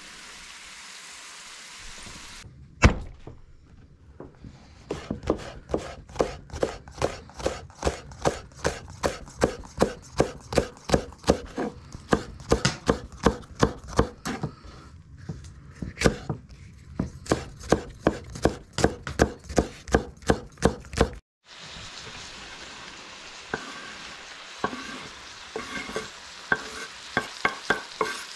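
Chicken pieces sizzling as they fry in a pan. Then a knife chops on a cutting board in a steady rhythm of about two to three strokes a second, for some sixteen seconds. Near the end the frying sizzle returns with light clatter from stirring.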